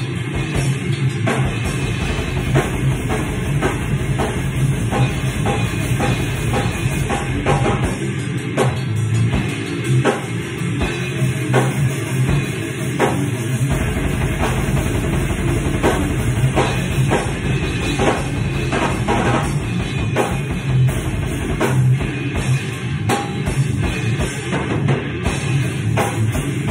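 Heavy metal played on electric guitar over drums, with two long stretches of rapid double-bass kick drum.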